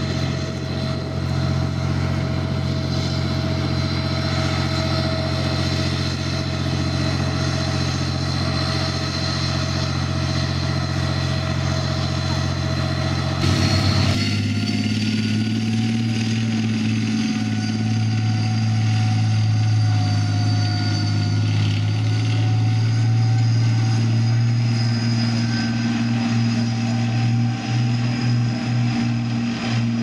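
Challenger armoured repair and recovery vehicle's V12 diesel engine running with a steady low drone. About halfway through the sound cuts abruptly to the vehicle on the move, its engine note deeper and stronger and wavering a little.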